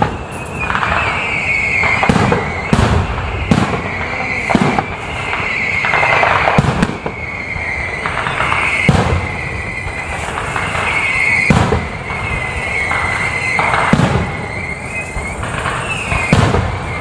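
Aerial fireworks shells bursting one after another, a sharp boom about every second, with a high wavering whistle running between the bursts for most of the time.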